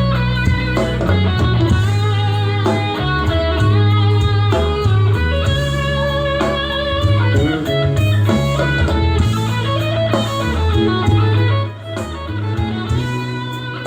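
Recorded music with electric guitar and drums, played loud through dB Technologies 12-inch PA speakers in a sound test, with strong bass notes.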